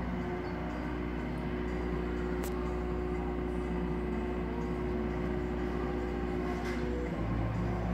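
Compact excavator's diesel engine running steadily, with a couple of short clicks over it; its low note changes about seven seconds in.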